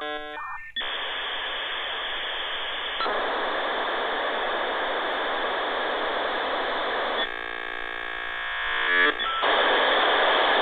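Radio-static glitch sound effect: a brief burst of electronic beeps, then a steady hiss of static. About seven seconds in, a buzzing stepped tone takes over for a couple of seconds, and then the static returns, louder.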